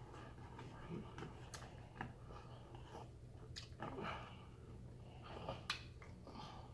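Quiet, close chewing of pulled pork and coleslaw, with scattered small clicks and taps as a fork scrapes and picks at the plate.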